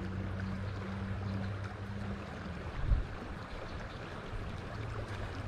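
River water flowing and rushing steadily, with a low hum and one brief low thump about three seconds in.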